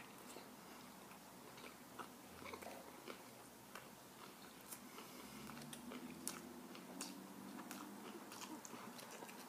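Faint close-up chewing of a soft tortilla wrap with the mouth closed: scattered soft clicks and smacks of the mouth and food.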